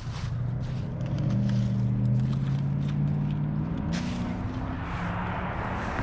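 A motor vehicle drives past: a steady engine hum swells, rises in pitch a little before four seconds in, and gives way to a rushing tyre hiss.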